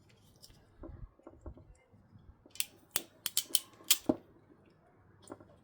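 Sharp snips and clicks of small hand tools working on headlight wiring: about six in quick succession from about two and a half to four seconds in, with quieter handling noise before them.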